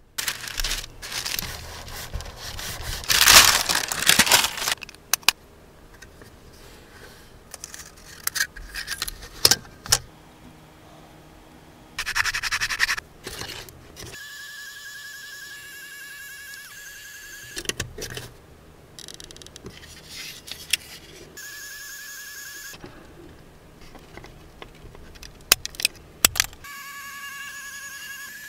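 Scraping, crackling and clicking of stiff plastic strips being pressed and handled on a wooden board, loudest a few seconds in. Later a 3D pen's extruder motor whines steadily with a slight warble, in three stretches.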